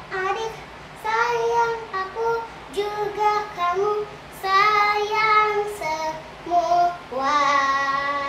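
A young girl singing a praise song solo, in short sung phrases with brief breaks between them and a long held note near the end.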